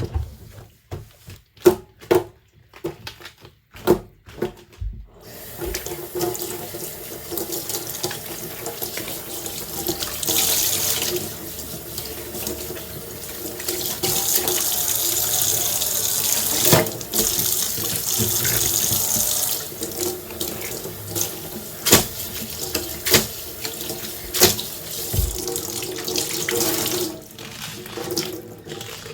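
Dishes clinking against each other in a sink, then a kitchen tap turned on about five seconds in, running steadily while dishes are rinsed under it with more clinks. The water eases off near the end.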